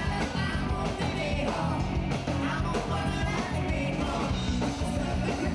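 Rock band playing live, with a woman singing lead over a steady drum beat.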